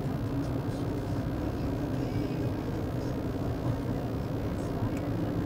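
Steady road noise inside a moving vehicle's cabin: the engine and tyres running evenly at a constant speed on a paved road.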